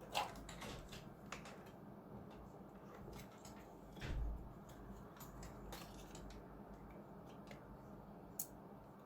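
Scattered small clicks and taps from handling a circuit-board module and hand tools on a workbench, with a duller knock about four seconds in and a sharp click near the end.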